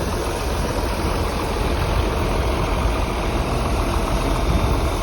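Tractor engine running steadily while the grain cart's auger unloads corn into a straight truck.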